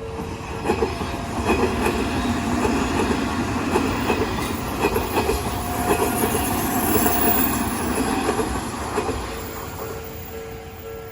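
Odakyu Line electric train passing over a level crossing, its wheels clacking over the rail joints in a steady rhythm, loudest in the middle and fading near the end. The crossing's warning bell is heard ringing again as the train fades.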